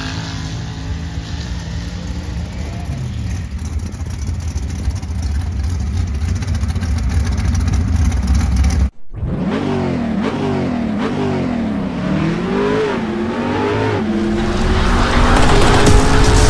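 Mud drag truck's race engine running with a loud, steady drone. After a cut it is revved about four times in quick swells up and down. Near the end a rising sound effect comes in.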